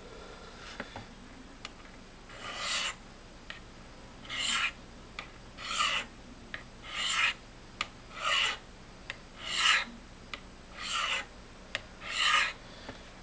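Knife blade drawn down the flat faces of a Spyderco Sharpmaker's ceramic stones: eight short scraping strokes, roughly one every second and a half, with light ticks between them, honing a dull section of the edge near the handle.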